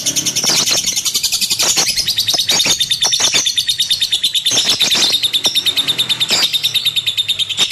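Lovebird singing its chattering song: a fast, unbroken run of high, shrill chirps, with a few sharp clicks mixed in.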